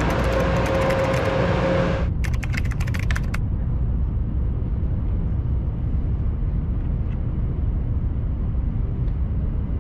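Steady low rumble of a high-speed train running. Over it, a hiss with a steady tone lasts about two seconds, then a quick run of sharp clicks lasts about a second.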